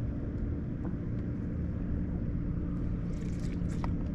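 Steady low engine rumble with a constant hum, with a few faint clicks near the end.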